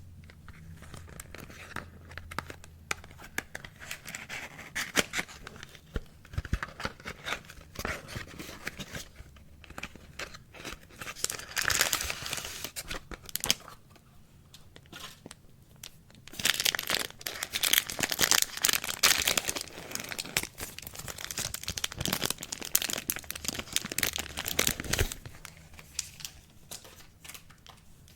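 Soap packaging being torn open and crinkled by hand: wrappers ripping and crackling in close-up, in bouts. It is loudest around the middle and through much of the second half, and softer near the end.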